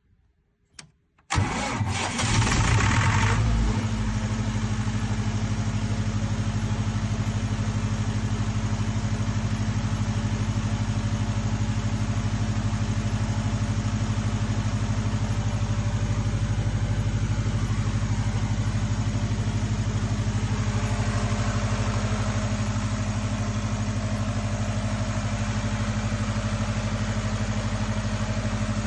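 Perkins diesel engine of an FG Wilson 60 kVA generator set starting: after a faint click it fires suddenly about a second in, runs rough and louder for a couple of seconds, then settles into a steady, even run at constant speed.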